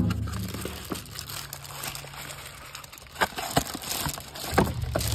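Crinkling and rustling of a filter's cardboard-and-plastic packaging being handled, with several sharp knocks in the last two seconds and a low steady rumble underneath.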